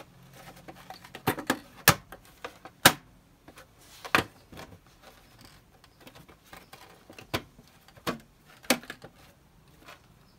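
Gloved hands tugging at a Tesla Model 3's plastic aero wheel cover to pull it off the wheel. It gives sharp plastic clicks and knocks, four in the first few seconds and three more near the end, with faint rubbing between.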